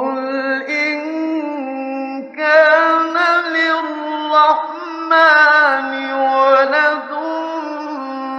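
A man's voice reciting the Quran in melodic tajweed style, with long held, ornamented notes. The sound comes from a 1958 Egyptian radio recording. The voice starts right after a silent pause and gets louder about two and a half seconds in.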